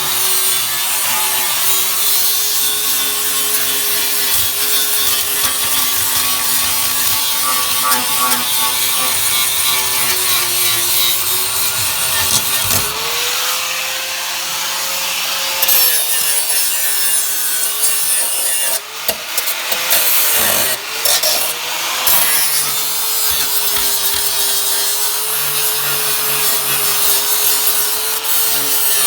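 Handheld power grinder running continuously against sheet steel, its motor whine sagging under load and rising when the tool is eased off. There are a couple of brief let-offs about two-thirds of the way through.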